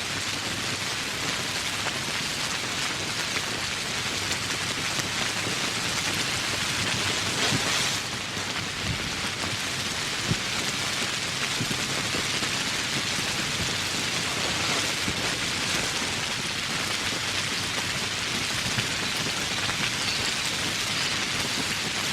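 Steady rain, a dense even hiss of many drops falling, swelling briefly about seven seconds in before settling back.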